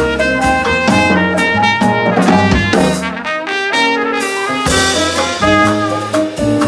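Live jazz combo: a trumpet plays the melody over plucked upright bass, keyboard and drum kit, with a cymbal wash about four and a half seconds in.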